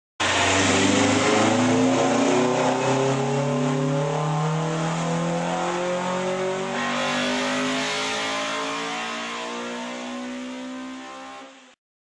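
Car engine accelerating under load, its pitch climbing slowly and steadily for about eleven seconds, then fading out near the end.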